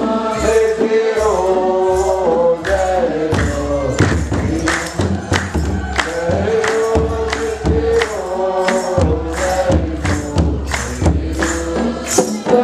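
Many voices singing an Orthodox Tewahedo hymn (mezmur) together, accompanied by a kebero drum and hand-clapping in a steady beat.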